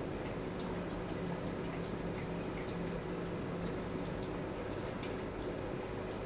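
Steady hiss of room noise with a low hum and a few faint scattered ticks.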